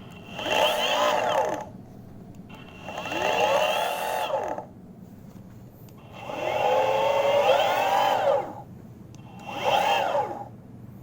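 Boosted Mini X electric skateboard drive motors spun up four times with the wheels off the ground, each time a whine rising in pitch then falling as the wheel slows. The odd noise the owner is chasing is heard from both driven wheels, louder on the left.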